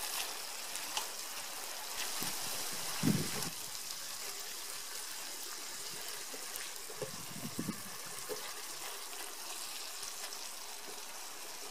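Tomato, onion and garlic stew base sizzling steadily in a nonstick frying pan while a spatula stirs through it, with a few short, louder sounds about three and seven seconds in.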